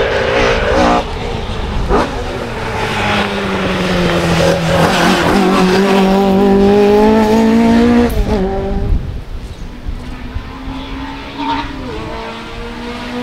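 Classic Ford Escort rally car's engine at full stage pace: its pitch drops as the car slows for a bend, then climbs hard as it accelerates past and breaks off about eight seconds in. A second rally car's engine follows, fainter at first and rising in pitch near the end.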